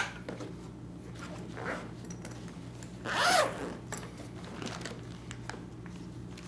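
Zipper of a padded fabric knife sleeve being run open, with one long loud zip about three seconds in and smaller zipping and rustling around it. A knock sounds as it begins, and a low steady hum runs underneath.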